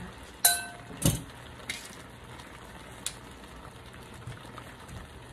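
Kitchen handling sounds: a sharp clink that rings briefly about half a second in, a duller knock a moment later, then a few light clicks, over a faint steady background hiss.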